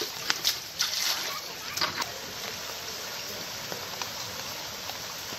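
Steady watery hiss of rain and standing floodwater, with a few short splashes in the first two seconds.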